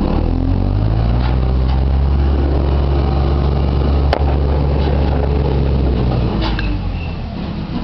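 Tractor engine running steadily while the tractor grades dirt with a rear blade, growing fainter about six seconds in as the machine moves away. A single sharp click comes about four seconds in.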